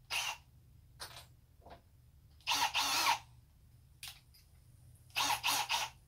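Cordless drill run in a string of short trigger bursts: several brief ones, a longer run of about two-thirds of a second in the middle, and three quick bursts close together near the end.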